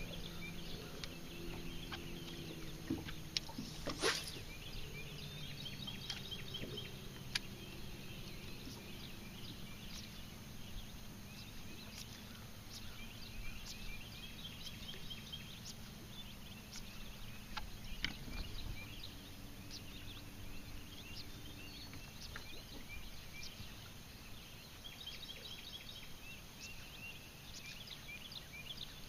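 Short, rapid pulsed animal calls, high-pitched, repeating every few seconds over a faint low hum, with a sharp click about four seconds in.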